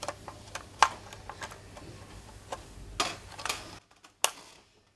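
Short sharp plastic clicks of RAM sticks being pressed into a motherboard's memory slots, the slot latches snapping shut; a handful of clicks, the loudest about a second in.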